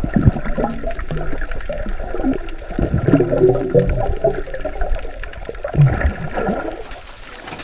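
Muffled underwater sea-water sound from a submerged camera: low gurgling and bubbling with wavering low tones. About six and a half seconds in the sound brightens as the camera nears or breaks the surface.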